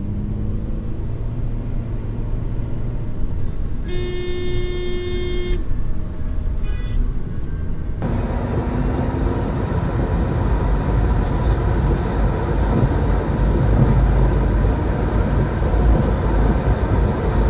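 Road and engine noise from traffic, with a car horn blowing one steady note for about a second and a half, about four seconds in. About eight seconds in the background changes abruptly to a louder, deeper rumble.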